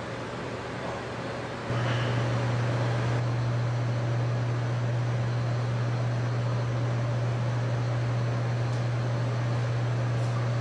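A steady low mechanical hum over a faint hiss, which gets clearly louder about two seconds in and then holds steady.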